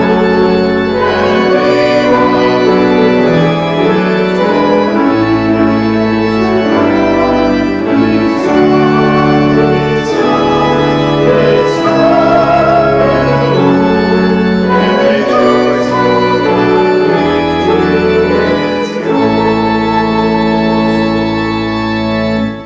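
Church organ playing slowly in loud, held chords over long sustained bass notes, stopping on a final chord near the end.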